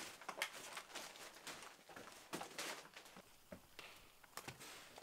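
Faint, irregular footsteps and scuffing of a few people walking, with scattered light knocks.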